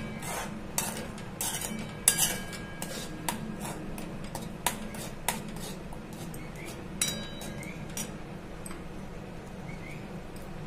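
A steel spoon stirring thick tomato sauce in a metal kadai, scraping and clinking against the pan in irregular strokes that thin out after about seven seconds.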